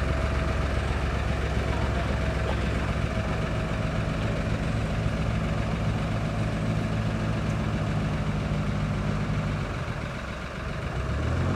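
Narrowboat's diesel engine chugging steadily at low speed as the boat motors slowly into a canal tunnel; the sound dips about ten seconds in, then comes back up near the end.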